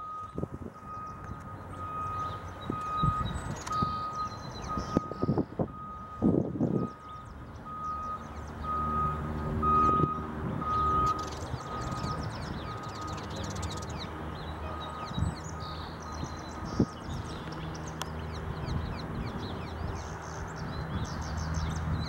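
A vehicle's reversing beeper sounding a steady series of short high beeps, which fade out about two-thirds of the way through, over the low running of a vehicle engine that grows louder about halfway. Faint bird chirps come and go.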